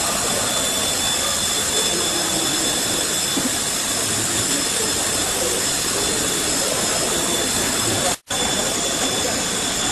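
Five-axis CNC machining center's spindle running as its tool mills a car engine cylinder block: a steady machine hiss with thin, steady high whines over it. The sound cuts out for a split second about eight seconds in.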